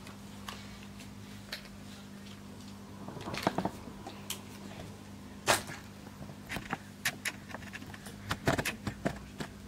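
Scattered rustles and short sharp clicks from baby clothes, their plastic tag fasteners and a pair of scissors being handled, over a steady low hum.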